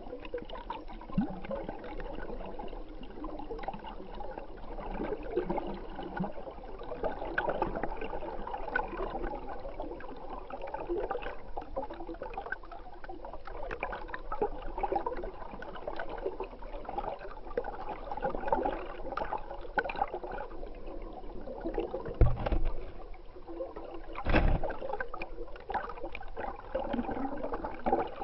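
Flowing stream water heard from underwater: a steady crackle and burble of moving water. Two dull knocks sound about two seconds apart near the end.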